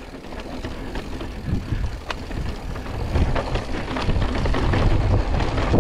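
Mountain bike riding over a rough trail: tyres on dirt and rock, with frequent rattles and knocks from the bike over a low rumble that grows louder after about three seconds.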